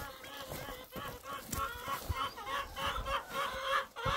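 Chickens clucking in a quick run of short calls, about three a second, growing louder toward the end.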